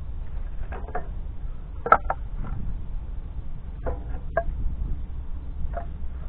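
Split firewood pieces knocking together as they are picked up and stacked, a few short wooden clunks with the sharpest about two seconds in, over a steady low rumble.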